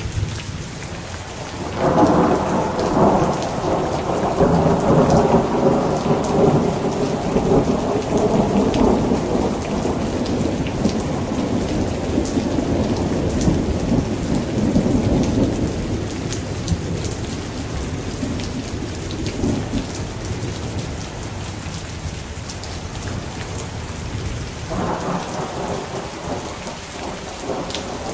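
Steady rain falling, with rolling thunder. A long rumble starts about two seconds in and slowly dies away, and another begins near the end.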